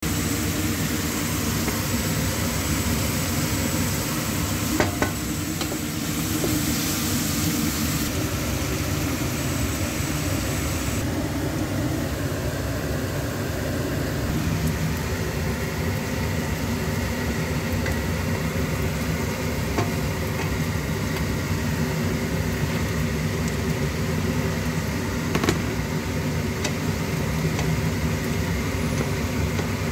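Sliced onions sizzling in hot oil in a frying pan, stirred with a wooden spatula, with a few sharp taps of the spatula against the pan. A steady low hum runs underneath.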